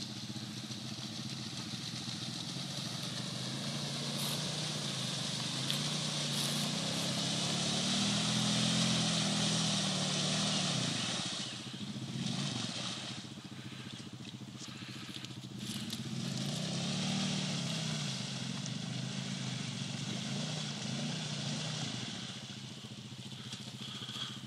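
ATV engine running and revving, its pitch rising and falling, loudest around the middle and again about two-thirds of the way through, over a steady high hiss.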